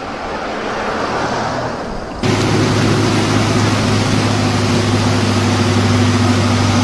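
Floodwater rushing fast down a rocky stream channel: a loud, steady rush, with a steady low engine hum under it. Before it starts with a sudden cut about two seconds in, there is a quieter rush that slowly grows louder.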